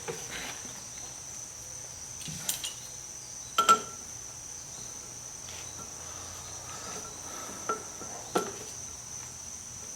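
A handful of short metal clinks and taps as the wheel nut and spring-loaded hub tool are handled on the hub, the loudest a little under four seconds in. A steady high-pitched whine runs underneath.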